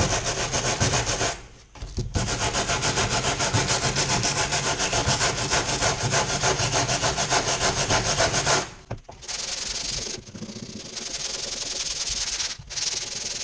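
A steel wire brush is scrubbed rapidly back and forth over a sheet of 80-grit sandpaper to clear out fiberglass body filler that has balled up in the grit, with a short pause about one and a half seconds in. Near nine seconds in the scrubbing stops and a softer, steadier rasp of sandpaper held in the palm, sanding the filler smooth, takes over, broken briefly near the end.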